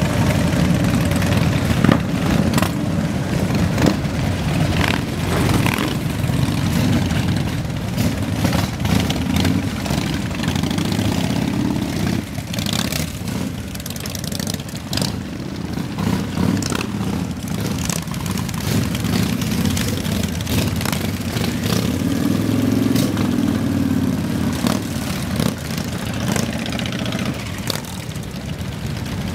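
Motorcycle engines running steadily with a deep, low rumble, with scattered sharp clicks and knocks.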